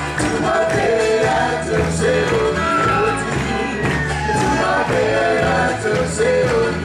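Samoan group song: several voices singing together over a steady rhythm of percussion strokes.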